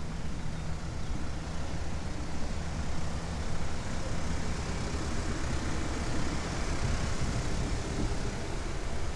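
Steady low engine drone running without change.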